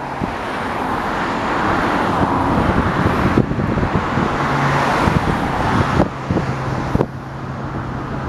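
Road traffic noise of cars passing close by, swelling twice. Wind thumps on the microphone throughout, and a low steady hum comes in about halfway through.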